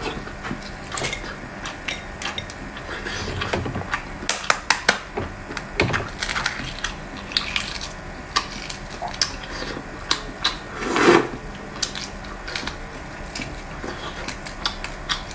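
Close-up eating sounds of five-spice boiled eggs: scattered crackles and clicks of eggshell, utensils and bowl, with chewing. A longer, louder sound comes about eleven seconds in.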